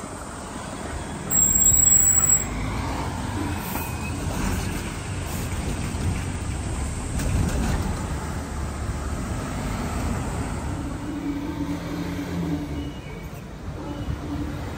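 Street traffic: cars, a van and a truck passing at an intersection, with a steady low rumble of engines and tyres. Just over a second in comes a short, loud burst of noise.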